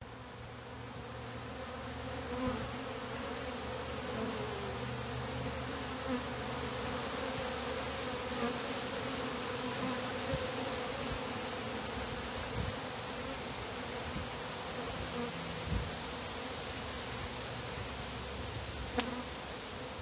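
A crowd of honey bees buzzing around the hive: a steady, continuous low hum of many wings. A few light knocks sound over it now and then.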